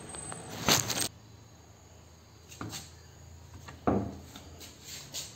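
A handful of separate clunks and knocks from a car side-mirror assembly and door trim being handled and fitted against the door. The loudest is a quick double knock about a second in, with a heavier clunk near the four-second mark.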